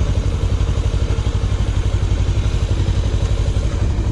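A vehicle engine idling, with an even, rapid low pulse.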